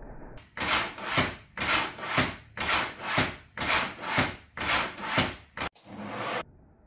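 Capstan-driven robot leg with brushless motors jumping repeatedly on a vertical rail test stand, about two jumps a second. Each jump is a noisy swell ending in a sharp knock. The jumping stops suddenly about a second before the end, and a short steadier noise follows.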